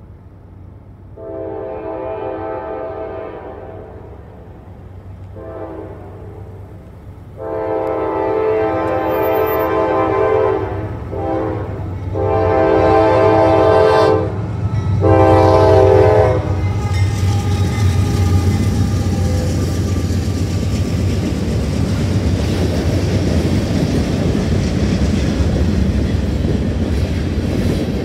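Freight locomotive air horn sounding for the grade crossing: a series of blasts, mostly long with one short one, each louder as the train nears. Over the second half, the freight train passes, with a steady diesel rumble and the rolling noise of the cars on the rails.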